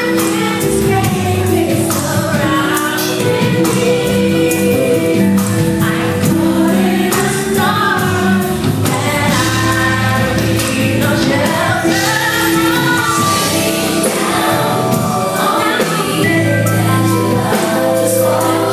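Live R&B performance: a female vocal trio singing in harmony over a live band with keyboards and drums, the melody lines sliding and ornamented.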